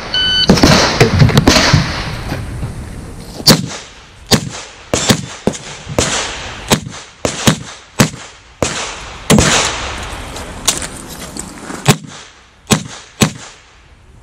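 A shot timer's electronic beep, then about a second and a half of loud jumbled noise. After that comes a long string of shots from a .45 ACP revolver, a Smith & Wesson 325 Thunder Ranch, mostly half a second to a second apart.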